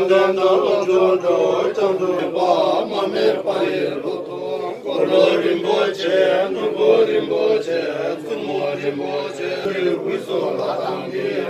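Several men's voices chanting a Tibetan Buddhist prayer together in a steady, continuous recitation.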